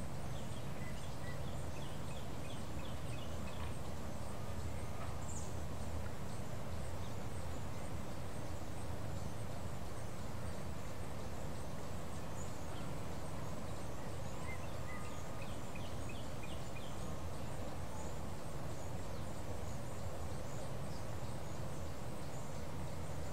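A bird giving two quick runs of short high chirps, one about a second in and another just past the middle, over a steady low outdoor rumble.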